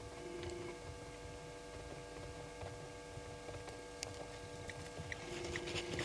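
Steady electrical hum with faint low rumbling underneath, and a few sharp clicks and taps coming more often over the last couple of seconds.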